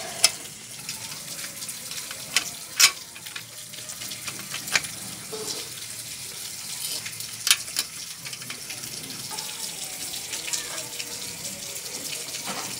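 Sharp, irregular metal clicks and taps, about six, as a chainguard mounting clamp is handled and fitted onto a steel bicycle frame, over a steady background hiss.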